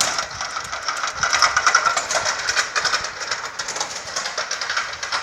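A tarp-workshop machine running, set going by pressing on the table: a loud, fast, even clatter with a steady hiss.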